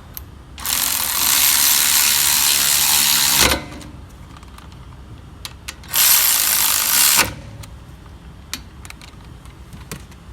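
A cordless power tool running the brake caliper bolt down, in two runs: a steady whirr of about three seconds, then a shorter one of about a second a few seconds later. Small clicks of tool handling come between the runs.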